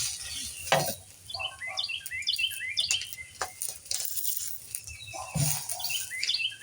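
Small birds chirping in quick runs of short, repeated notes, with a couple of sharp knocks mixed in.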